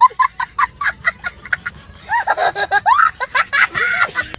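A young child laughing hard: a quick run of short, high giggles, then longer laughs that swoop up and down in pitch.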